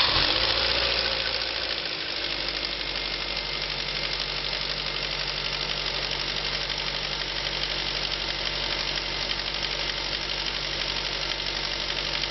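Ford Mondeo Duratec HE petrol engine just after starting, running a little faster for about two seconds and then settling to a steady idle. It is running with worn, loose intake-manifold swirl flaps, whose rattle is a symptom of their failing.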